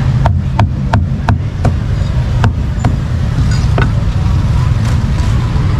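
A cleaver chopping barbecued pork on a round chopping block: sharp knocks about three a second for the first two seconds, then a few slower strokes. Underneath runs a steady low rumble of street traffic.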